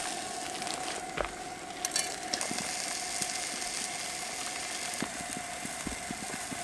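Coleman propane camp stove burner running with a steady hiss while cod fries in the pan, sizzling. A few light clicks and knocks of a pot and can being handled.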